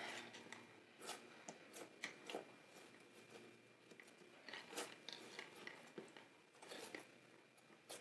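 Faint, irregular soft pats, presses and rustles of hands kneading a ball of homemade flour-and-salt play clay on a floured wooden countertop.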